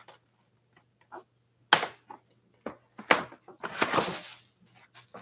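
Foam padding and cardboard packaging being pulled off a boxed e-bike: a couple of sharp snaps, a few light clicks and a longer scraping rustle about four seconds in.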